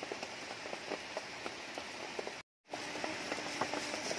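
Steady rain falling on wet rocks and leaves, with many small drop ticks; the sound cuts out completely for a moment about halfway through.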